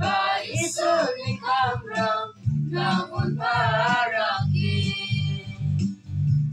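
Mixed youth choir of male and female voices singing a song in Garo into microphones, over a low bass line that comes and goes in short rhythmic blocks.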